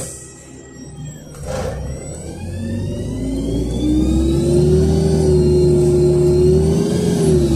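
LiAZ 5292.67 city bus with its YaMZ-53624 compressed-natural-gas engine and ZF automatic gearbox, heard from inside the cabin, accelerating: a whine rises in pitch over the first few seconds, holds steady, and dips in pitch near the end.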